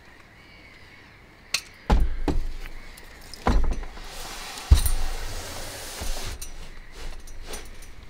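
Bare metal rack frame knocking and clanking as it is lifted into a car's load space, with two heavy thuds about two and five seconds in and a scrape as it slides across the carpeted floor.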